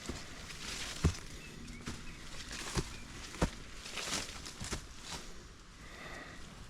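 Footsteps of a hiker climbing a steep dirt mountain trail: a few uneven footfalls thudding about a second or so apart, with rustling underfoot between them.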